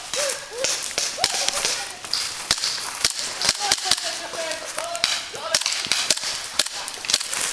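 Airsoft pistols firing: a string of sharp, irregular pops and cracks.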